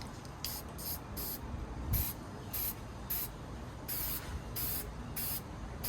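Aerosol spray-paint can sprayed in about nine short hissing bursts, a little under a second apart, laying a coat of paint on metal plane parts.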